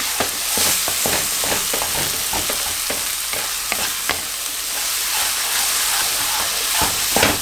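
Onion-tomato curry masala sizzling in oil and butter on high heat, with a spatula scraping and knocking against the pan as it is stirred.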